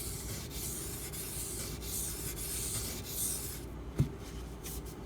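Spyderco Salt's H1 steel blade being stroked across a wet sharpening water stone, a run of raspy rubbing strokes working the tip after a burr has been raised. The strokes stop about three and a half seconds in, followed by a single sharp click.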